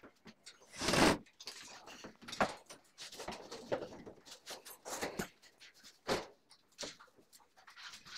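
Scattered irregular knocks and scrapes from handling the steel-and-board furniture parts during assembly, the loudest about a second in.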